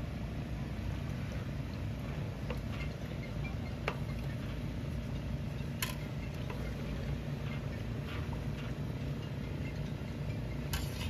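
A paddle knocking a few times against a large metal pot of simmering pork skin as it is stirred, over a steady low mechanical rumble.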